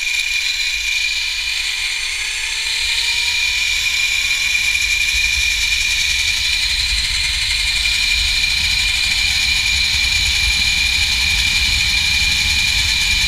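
Zipline trolley pulleys running along the steel cable: a steady high whine, with a lower tone rising in pitch over the first few seconds as the rider picks up speed. Wind rumbles on the microphone underneath.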